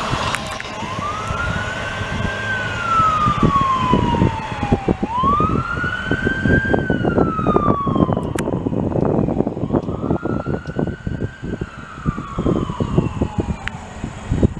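An emergency vehicle's siren wails, rising quickly and falling slowly three times, over the rumble and repeated clanking of a passing intermodal freight train carrying truck trailers on flatcars.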